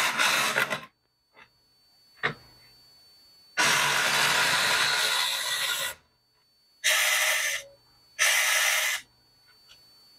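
A 1:43-scale four-wheel-drive RC drift car's tiny electric motor and tyres whirring and scrubbing on a plastic cutting mat as it spins on the spot, in bursts: a short one at the start, a longer one of about two seconds, then two short bursts near the end, with a click between.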